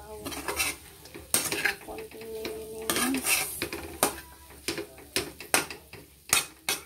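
Metal spatula scraping and clanking against a wok, stir-frying cubes of fried tofu in irregular strokes that come faster in the second half.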